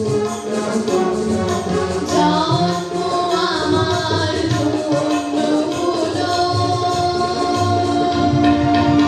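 A woman singing into a microphone, holding long notes that slide between pitches, backed by a live band with a steady jingling percussion beat.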